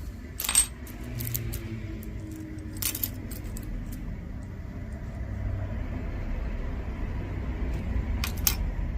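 Costume jewelry clinking and jangling as pieces are picked up and sorted: a few sharp metallic clicks, the clearest about half a second in, near three seconds and near the end, over a steady low rumble.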